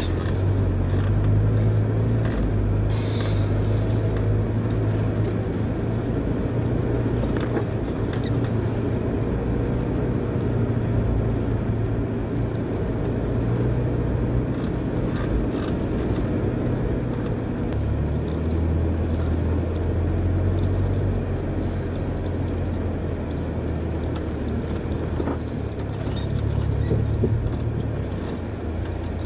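A Land Rover's engine droning at low speed as it crawls along a rutted mud track. Its pitch drops about two-thirds of the way through and rises again near the end. Scattered knocks and rattles come from the vehicle working over the ruts.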